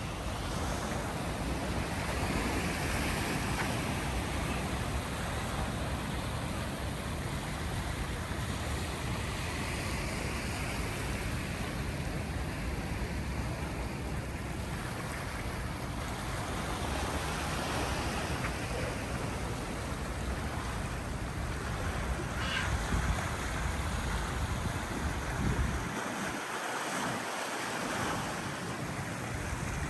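Sea waves washing in, swelling and easing every several seconds, with wind rumbling on the microphone.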